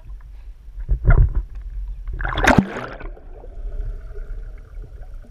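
Sea water sloshing and gurgling against a waterproof action camera at the surface, with a splash about two and a half seconds in. After that the sound turns muffled as the camera goes under water.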